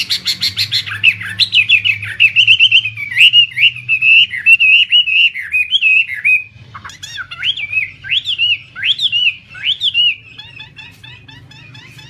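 Laughingthrush song: a loud run of rapid, slurred whistled notes, a brief break about six and a half seconds in, then louder swooping phrases that give way to quieter calls near the end.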